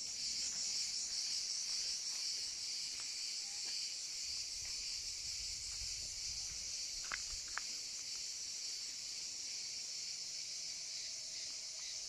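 Cicadas singing in a steady, high-pitched drone, with a couple of faint clicks about seven seconds in.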